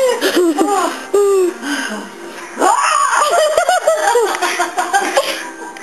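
People laughing hard in rapid, high-pitched bursts. The laughter breaks off about two seconds in and starts again a moment later.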